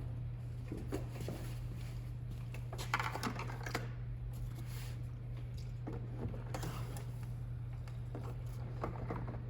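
Faint handling clicks and short scuffs over a steady low electrical hum. These are the small sounds of a fuel cap and gas can being worked while a walk-behind mower's tank is filled.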